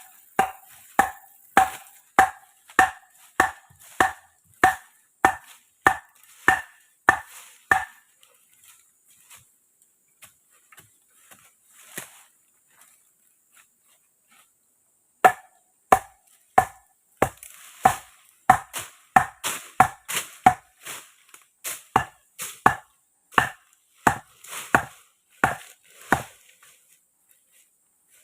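Wood being chopped with a blade in a steady rhythm, about one and a half sharp, ringing strokes a second. The strokes stop for several seconds, then start again.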